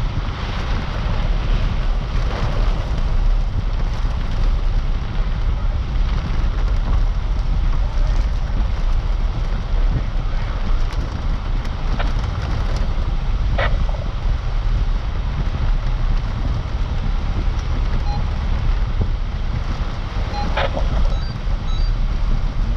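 A vehicle on the move, with a steady heavy low rumble of road and wind noise buffeting the microphone, and a few short clicks about halfway through and again near the end.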